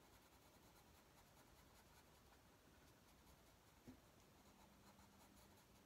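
Faint scratching of a wax-based Prismacolor cool grey coloured pencil shading on a colouring-book page, with one small tick about four seconds in.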